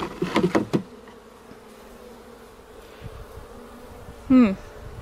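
Honey bees buzzing around an opened hive: a steady hum. About four seconds in, a short voice-like sound briefly cuts through.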